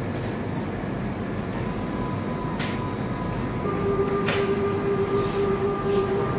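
Steady rushing machine noise in an eye surgery theatre, with a held electronic tone that sets in about three and a half seconds in, and a few faint clicks.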